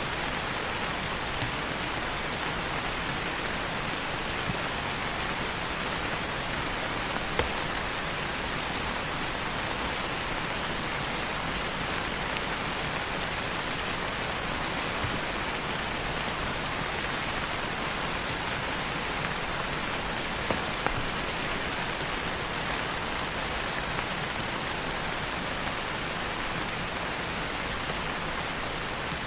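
Steady rain falling on leaves, an even hiss with a few louder single drops now and then.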